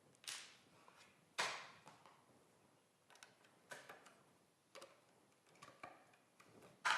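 Scattered clicks and knocks from handling a Festool PF 1200 milling machine, with plastic and metal parts tapping and clicking into place as it is set up, about seven in all, the loudest near the end.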